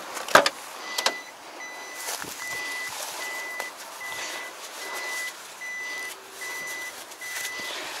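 Steady electronic beeping from a kei truck's warning buzzer, about one and a half beeps a second. There are sharp knocks near the start and the rustle of plastic fertilizer bags being handled on the truck bed.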